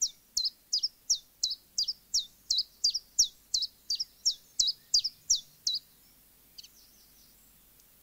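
Common chiffchaff singing: a run of sharp, high notes repeated about three a second, two slightly different notes alternating in its 'chiff-chaff' rhythm. The song stops about six seconds in.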